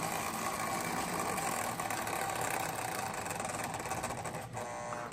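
Lionel 9U Standard Gauge electric locomotive running on tinplate track: the steady hum of its motor and the rumble of its wheels. The sound drops away about four and a half seconds in.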